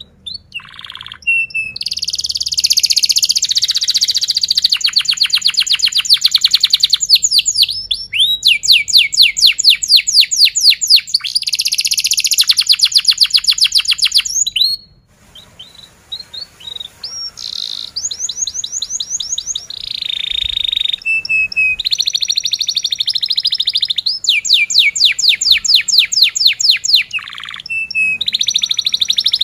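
Domestic canary singing a long, high-pitched song of fast trills and runs of rapidly repeated notes. The song breaks off briefly just after the start and again about halfway through.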